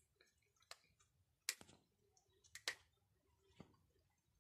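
Cats chewing pieces of chicken: a few faint, sharp crunches and clicks, irregularly spaced, over near silence.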